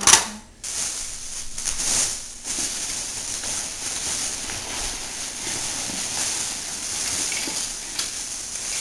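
Plastic toy pieces and their packaging being handled: a couple of sharp clicks at the start, then a steady crinkly rustle with a few faint ticks.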